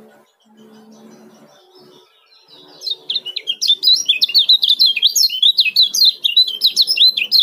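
Caged white-eye (kecial kuning) giving a fast, tightly packed run of high chirps (the 'ciak' call), starting about three seconds in.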